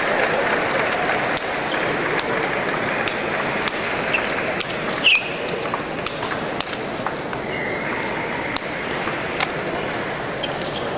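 Celluloid table tennis balls clicking irregularly off tables and paddles from rallies in a large hall, over a steady murmur of voices. A short high squeak stands out about five seconds in.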